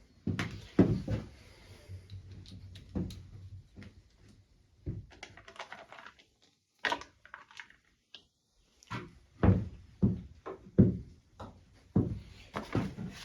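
Irregular knocks, taps and clunks of hands and tools working the plastic side panel off a dirt bike, with a short pause about seven seconds in.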